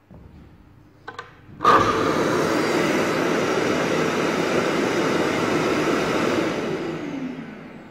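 A Hitachi sliding compound miter saw and the shop vacuum wired to it start together, spinning free without cutting: a click, then a sudden loud start. They run steadily for about five seconds, then spin down with a falling pitch.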